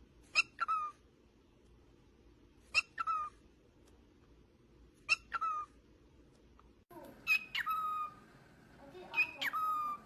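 Cockatiel calling five times, about every two and a half seconds. Each call is a short sharp note followed by a longer note that falls in pitch.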